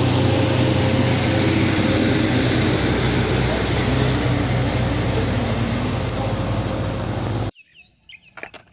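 Isuzu FVR box truck's diesel engine running and its tyres on the road as it drives past, loud with a steady low engine hum. The sound cuts off suddenly near the end.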